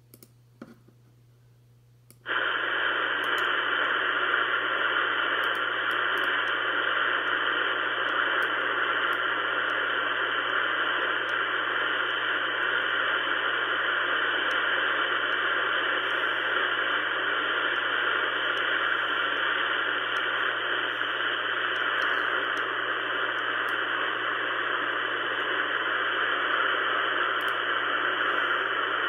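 Ten-Tec Pegasus shortwave receiver tuned to the 40-metre band in sideband mode, giving steady band-noise hiss with no station heard. The hiss comes up suddenly about two seconds in, after a few faint clicks, over a low steady hum.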